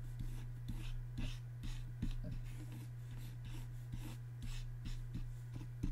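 Faint stylus strokes on a Wacom pen tablet: soft scratchy swishes and light taps, a few a second, over a steady low electrical hum.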